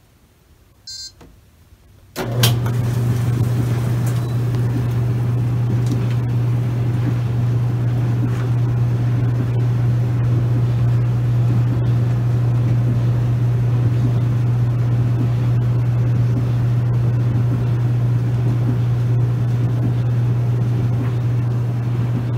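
A short beep from the control panel. About two seconds in, a Maytag clothes dryer starts and runs steadily: a loud, even motor hum with the drum tumbling a blanket.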